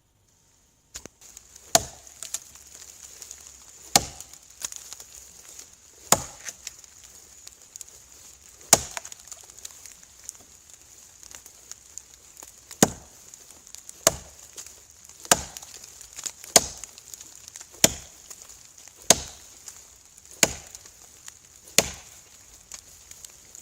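Axe chopping into wood: about a dozen sharp blows, a couple of seconds apart at first and then in a steadier rhythm of roughly one every 1.3 seconds.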